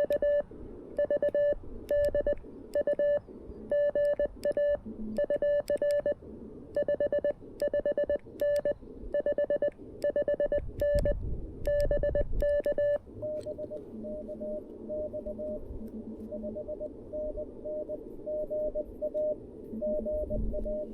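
Morse code on a QRP CW transceiver: a loud, clean keyed sidetone of dits and dahs for about the first two-thirds. Then fainter Morse from another station comes in over steady radio band noise, with a second, lower-pitched signal keying alongside.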